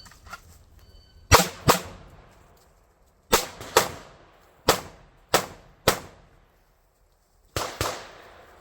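A string of about nine gunshots fired in quick groups: a pair, another pair, three, then a last pair, with pauses of a second or more between groups and each shot's report trailing off briefly.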